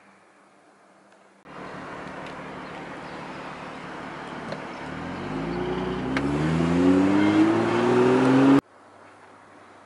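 BMW M2's turbocharged inline-six accelerating, its pitch climbing steadily over about three seconds above road and wind noise, heard from inside the moving car. The sound starts suddenly about a second and a half in and cuts off abruptly near the end.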